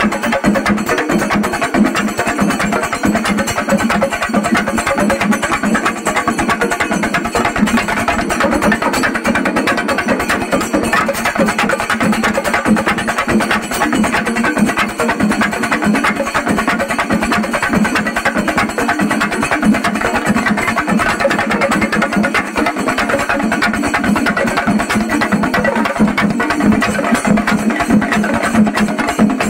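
Singari melam: a troupe of chenda drums beaten fast with curved sticks, a dense, unbroken stream of strokes that holds steady in loudness throughout.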